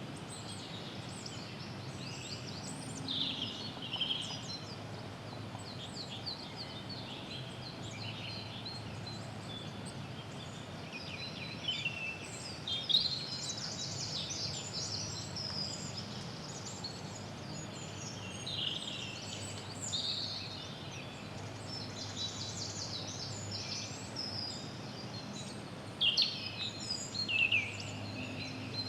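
Early-spring woodland ambience: several songbirds chirping and trilling in short, quick high phrases, louder in clusters about halfway through and near the end, over a steady low background noise.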